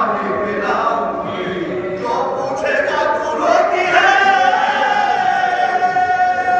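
Group of men singing an Urdu marsiya (mourning elegy) together without instruments: a lead reciter with three men joining in chorus. About four seconds in, the voices settle on one long held note.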